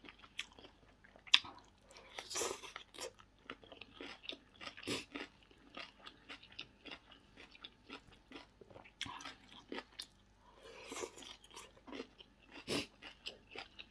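A person chewing and crunching a mouthful of shredded vegetable salad, with many small, irregular wet mouth clicks and smacks.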